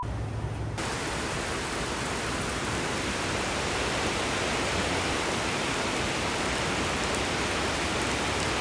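Steady, heavy rain falling: an even hiss that sets in about a second in and holds unchanged.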